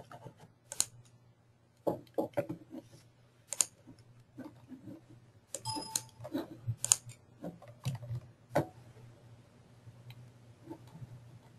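Scattered computer mouse clicks and keyboard taps close to the microphone, irregular and unhurried, over a low steady hum. A short tone sounds about six seconds in.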